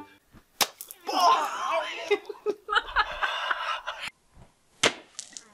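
Two sharp smacks of thrown water balloons striking, one about half a second in and one near the end, with laughing in between.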